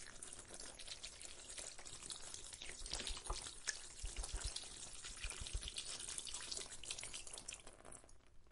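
Food sizzling and crackling as it cooks over a fire: dense, irregular small pops, with a few low thuds between about three and five and a half seconds in.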